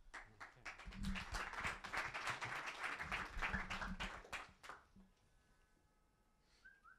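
Audience applauding, many hands clapping for about five seconds before it dies away.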